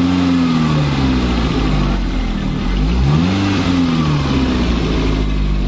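Chevrolet Spark's four-cylinder S-TEC petrol engine revved up from idle twice, once near the start and again about three seconds in, falling back to idle each time. These are test revs after its carbon-clogged EGR valve was cleaned.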